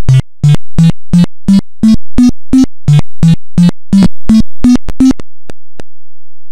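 Emulated Macintosh Plus sound playing the guided tour's computer-generated jingle: about fifteen short notes, roughly three a second, climbing step by step in pitch, dropping back and climbing again. The notes stop about five seconds in, followed by two faint clicks.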